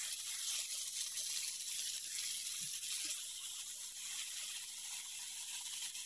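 Cuttlefish sizzling in melted butter on a hot griddle pan: a steady high hiss with fine crackling.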